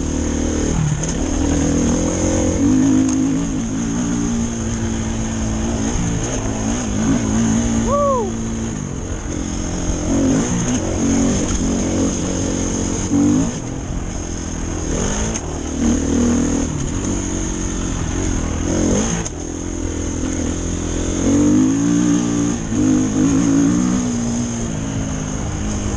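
Dirt bike engine running under load, the revs rising and falling over and over as the rider works the throttle and shifts.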